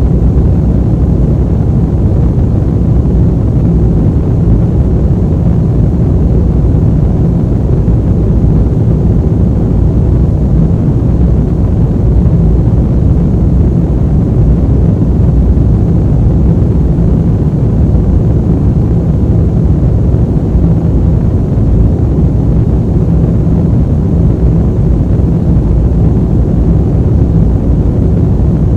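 Airplane ambient noise: a steady low rumble of aircraft engines and airflow, unchanging throughout.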